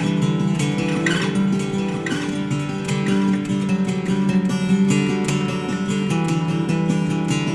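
Bluegrass-style tune on a Washburn acoustic guitar, strummed and picked, with chords struck about once a second.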